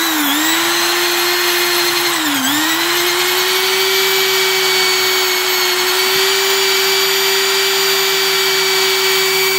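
Electric drill spinning a polishing disc with blue polishing compound against a Honda motorcycle engine's side cover: a steady high motor whine that dips in pitch briefly near the start and again about two and a half seconds in, as the disc is pressed onto the cover.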